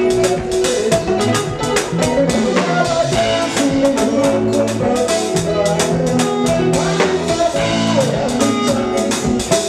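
Live band music: a steady drum beat with electric bass and keyboard, and a man singing into the microphone.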